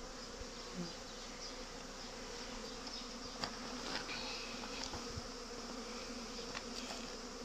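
Honeybees buzzing in a steady hum as they fly in and out of hive entrances. It is the sound of colonies in busy foraging flight, with workers bringing in pollen.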